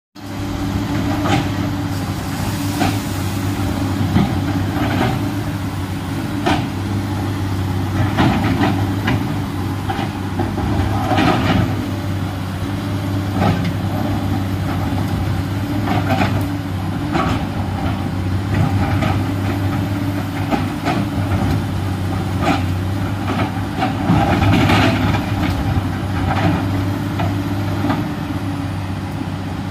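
Komatsu PC210LC crawler excavator's diesel engine running steadily while it digs a rocky hillside, with frequent sharp knocks and clanks from the working bucket and boom.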